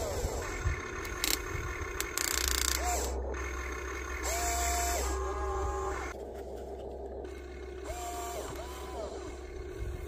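Small electric motors of a radio-controlled excavator whining in short runs, each rising to a steady pitch and dropping away, over and over. Two bursts of hiss and a low hum come in around the middle.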